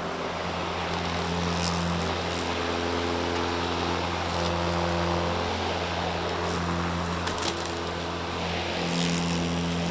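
Lawn mower running steadily, its motor hum slowly swelling and easing as it moves.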